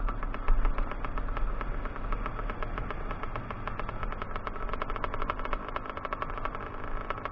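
Kawasaki KX 125 two-stroke single-cylinder engine running steadily as the dirt bike rides over a bumpy meadow track, with rapid knocks from the rough ground and wind rumble on the helmet microphone.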